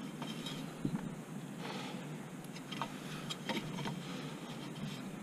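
Hand handling noises as the intake pipe is fitted by hand: a few light, scattered clicks and a brief rub over steady background noise.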